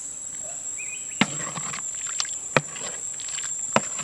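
A wooden ladle knocks sharply against a metal wok three times, with lighter clicks of stirring between, over a steady high-pitched insect drone.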